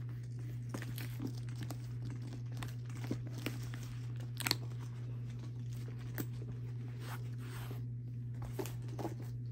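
Faint crinkling, rustling and light clicks from a quilted leather shoulder bag being handled and turned over, heard over a steady low hum.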